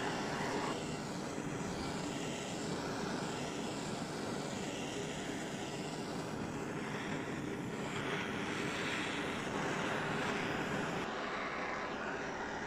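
Handheld kitchen gas torch burning with a steady rushing hiss, its flame played over roasted eggplant skins to char them for a smoky flavour.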